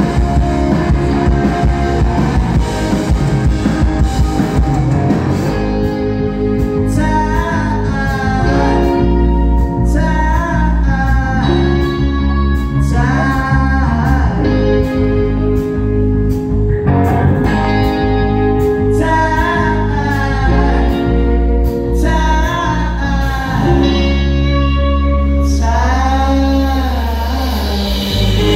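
Live rock band playing: two electric guitars, bass guitar and drum kit. A male lead vocal comes in about six seconds in and sings in phrases over the band.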